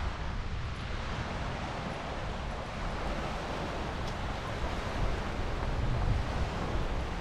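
Wind buffeting the microphone in uneven gusts of low rumble, over a steady rushing hiss.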